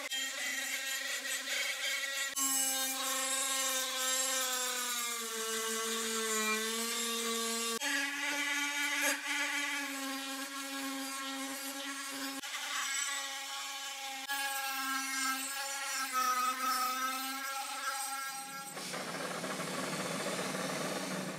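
High-speed rotary tool with a sanding drum grinding a cast-metal part: a steady whine whose pitch sags when it is pressed harder. Near the end it gives way to the steady hiss of a powder-coating spray gun.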